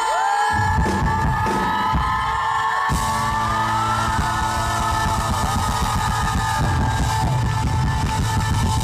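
A male singer holds one long high note over a live rock band. The drums and bass come in under it about half a second in and grow heavier about three seconds in.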